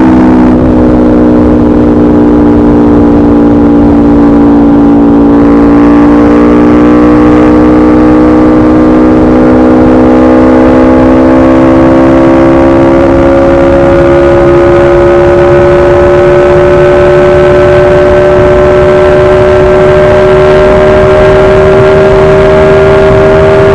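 2016 Aprilia RSV4 RF's V4 engine, very loud through a de-catted SC Project CRT exhaust, its note climbing slowly and steadily as the engine pulls.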